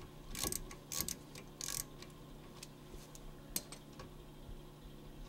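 A 3/8-drive ratchet clicking in short runs over the first two seconds as it backs out a drive-shaft-to-pinion-flange bolt, then only a few faint metallic ticks.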